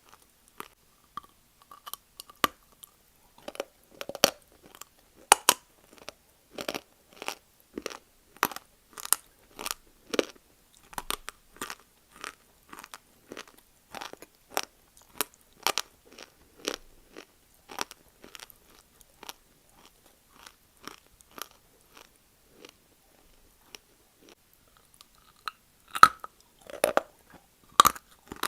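A person biting and chewing crunchy Multani mitti (fuller's earth clay) close to the microphone: a steady run of sharp crunches, about one or two a second, with the loudest bites near the end.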